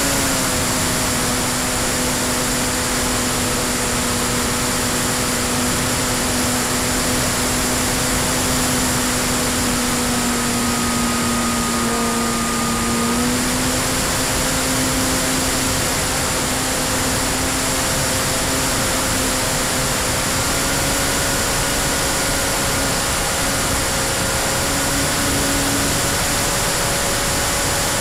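Electric motor and propeller of a Freewing P-51D radio-controlled model in flight: a steady drone that dips slightly in pitch near the start and steps up a little about halfway through. Heavy wind rush on the onboard camera's microphone runs under it.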